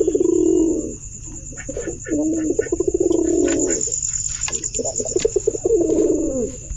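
Male domestic pigeon cooing in three long, rolling phrases, each with a quick pulsing flutter. The last phrase ends in a falling glide.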